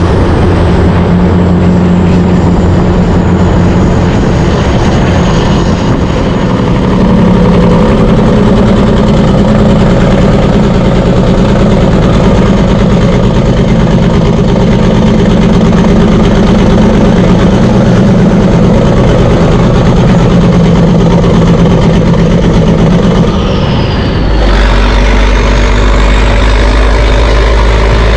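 Semi-truck's diesel engine running steadily while hauling a heavy lowboy load, with a brief dip in loudness and a change in the engine note about 24 seconds in, typical of a gear change.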